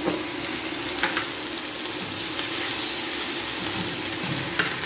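Chicken breast mini fillets sizzling steadily in hot oil in a frying pan, with a few light clicks of handling.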